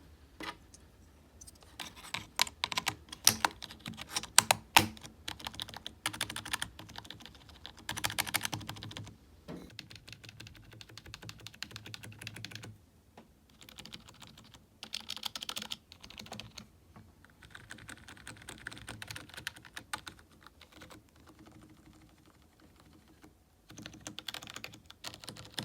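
Typing on a membrane keyboard: rapid keystrokes in bursts, with short pauses between runs.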